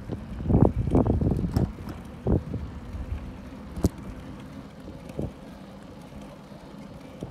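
A bicycle ridden over paving, heard mostly as wind buffeting the microphone and bumping rattles in the first two seconds, with a sharp click near four seconds. It settles to a steadier low rumble.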